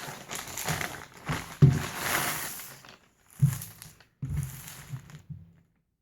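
Plastic mailer packaging crinkling and rustling as it is handled and pulled open, in several bursts, stopping suddenly near the end.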